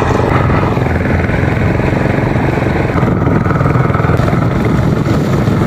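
A wooden river boat's engine running steadily while the boat is underway, a loud, even drone with a fast pulse.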